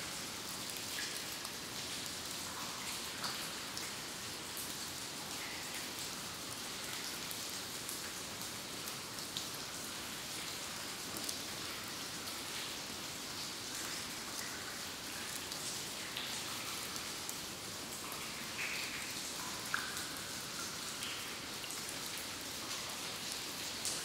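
Water dripping in a cave: irregular drops plink into water, some with a short pitched ring, over a steady hiss.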